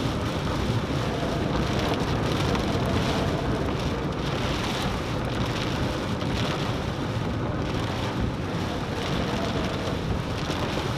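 Steady rain beating on a moving car, over the car's road and tyre noise during a tropical storm.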